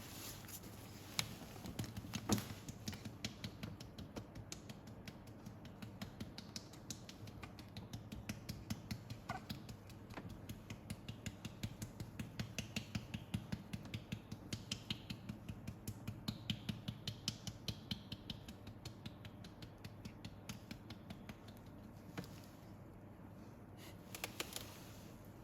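Steady, rhythmic patting on a newborn's back, about four soft pats a second, to bring up trapped air as a burp after a feed. The patting stops a few seconds before the end.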